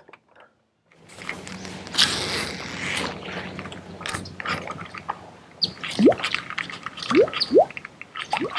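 Casting and working a small Pop-R P50 topwater popper on a baitcasting reel: a whirring cast about two seconds in, then the reel being wound in with scattered clicks and small splashes. Short rising chirps come in near the end.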